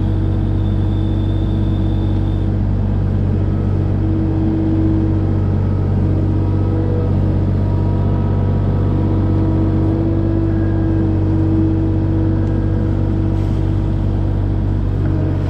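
Kubota KX040 mini excavator's diesel engine running steadily under digging work, with a hydraulic whine that swells twice.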